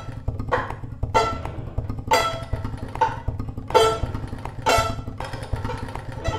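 Violin plucked pizzicato: about six ringing notes at uneven intervals, each fading quickly, over a low steady drone.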